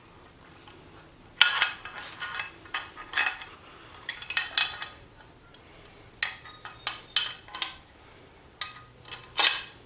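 Metal drill press parts being handled and fitted together: irregular metallic clinks and clanks with short ringing, starting about a second and a half in.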